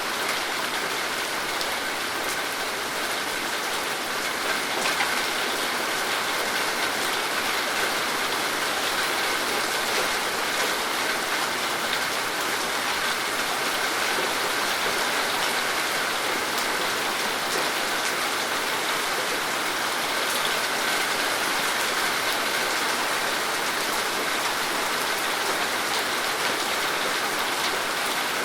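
Steady rain falling, an even hiss of many drops with faint scattered patters, unchanging in level.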